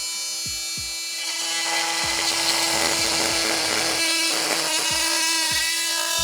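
Oscillating multi-tool running with a steady high hum. About a second in, its wood-cutting blade starts into wood, adding a rough, loud sawing buzz.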